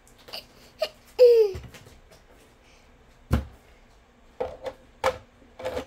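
A toddler's brief, high-pitched falling cry about a second in, then a single thump and a few light taps as plastic toys are handled.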